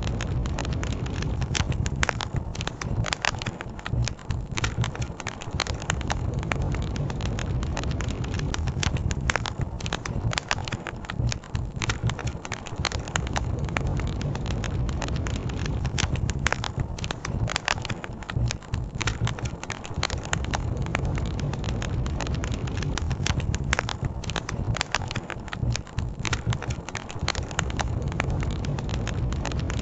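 Campfire crackling with frequent, irregular sharp pops and snaps, over a steady low rushing rumble.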